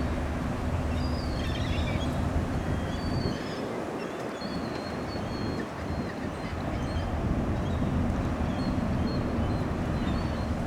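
Low, steady engine drone of a passing ocean-going cargo ship, with a hum that fades for a couple of seconds in the middle and then comes back. Small birds chirp faintly over it.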